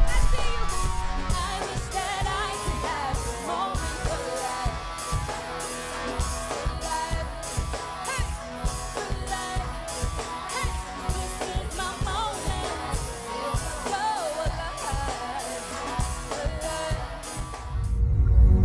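Pop song with a singer's voice over a steady drum beat; near the end the beat stops and the music changes to a deep, low swell.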